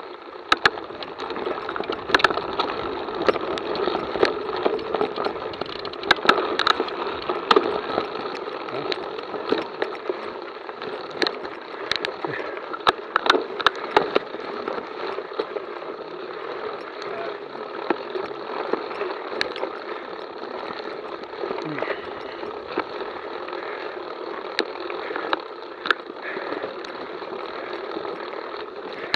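Mountain bike climbing slowly on a dirt and rock trail, heard through a Garmin VIRB Elite action camera mounted on the bike: a steady noise of tyres on the trail and the moving bike, with frequent sharp clicks and knocks throughout.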